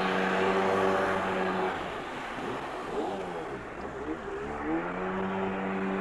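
Jet ski engine running at speed with a steady whine. For a few seconds in the middle the pitch swings up and down and the sound drops a little. It then settles back to a steady tone.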